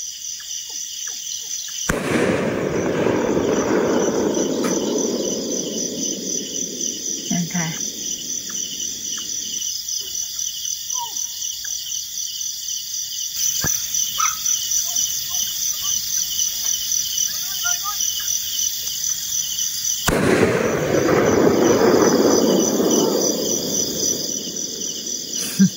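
Crickets chirping in a steady, fast-pulsing chorus. A low rushing noise swells up about two seconds in, fades after several seconds, and comes back later for a few seconds.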